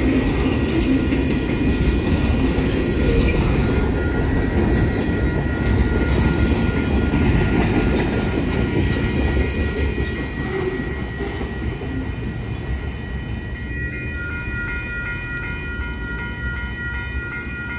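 Freight cars rolling through a level crossing, with wheels rumbling and clattering over the rails. The noise eases off toward the end as the last cars pass. The crossing signal's bell rings throughout, and its steady strokes stand out clearly in the last few seconds.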